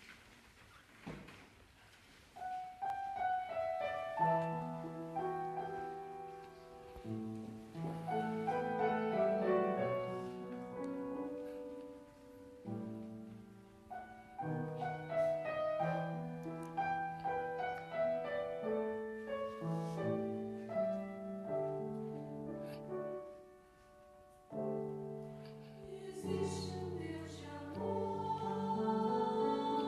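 Grand piano introduction to a choral piece, slow sustained chords and melody, starting about two seconds in. Near the end the choir begins singing over the piano.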